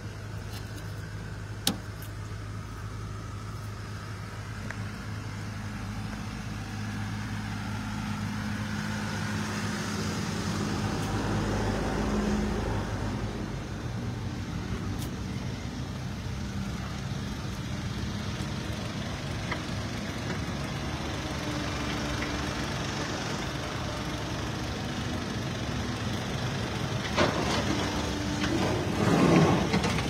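Heavy machinery engine running steadily, its note changing about twelve seconds in, with a few louder knocks near the end.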